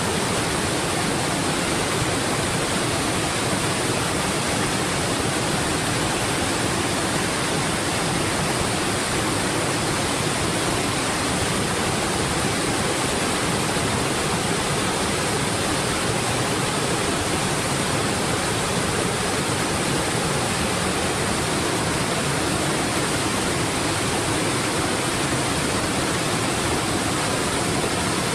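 Steady rushing of a waterfall, water pouring over rock ledges in an even, unbroken noise.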